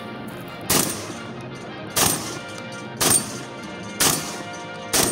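A 1923 Browning Auto-5 12-gauge recoil-operated semi-automatic shotgun fired five times, about a second apart, emptying its four-round magazine and the round in the chamber.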